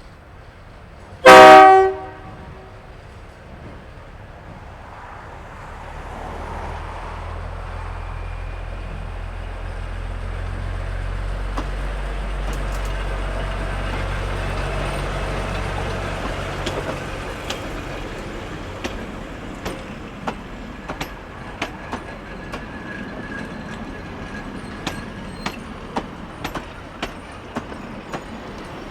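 Niigata diesel locomotive sounds one short, loud horn blast, then its engine drone grows as it approaches and passes. After it, the passenger carriages' wheels click over the rail joints.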